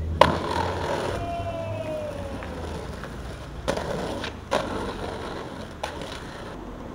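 Skateboard: one sharp smack of the board a moment in, then the urethane wheels rolling on pavement, with a few lighter clacks as it rolls on.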